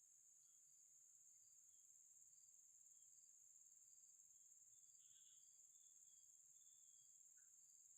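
Near silence with a faint, steady high-pitched chirring of crickets, and a few soft short chirps over it.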